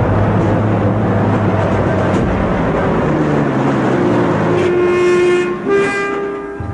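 Military truck's engine running as it drives up, with a low hum. About four seconds in, a held orchestral chord comes in and carries on.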